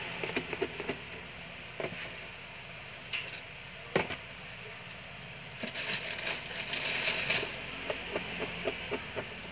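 Hands handling things on a counter: scattered knocks and clicks, then about six seconds in a stretch of paper rustling, followed by a run of small taps.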